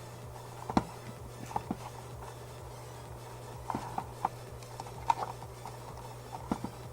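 Scattered light clicks and taps of a wire bundle and plastic parts being handled and bent into place, over a steady low hum.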